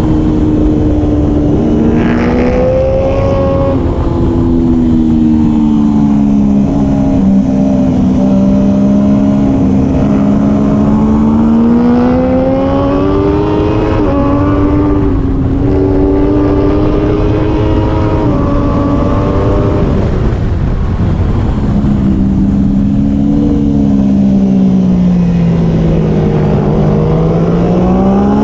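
Triumph Daytona 675R's three-cylinder engine at racing speed, revving up and down through the gears over a steady rush of wind. The pitch climbs, drops sharply at shifts, sinks for several seconds late on, then climbs again near the end.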